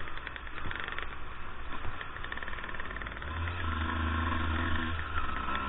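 Two-stroke enduro motorcycle engines running as the bikes ride a forest trail, heard from a camera on the bike. A steadier engine tone comes in about three seconds in.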